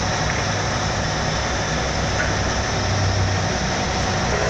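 Honda Fit 1.5's four-cylinder engine idling steadily.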